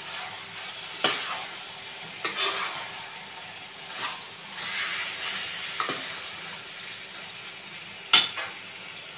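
Marinated chicken pieces sizzling as they sauté on a high flame in a metal pot. A metal ladle stirs them, scraping and knocking sharply against the pot a few times.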